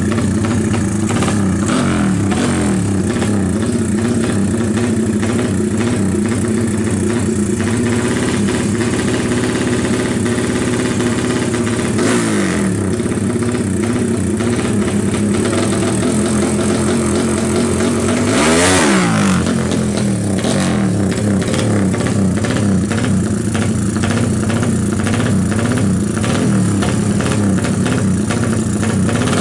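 Bored-up 225 cc single-cylinder four-stroke drag bike engine, built from a Honda GL Pro, running through a racing exhaust. It idles with repeated throttle blips, and one sharp rev rises and falls about two-thirds of the way through.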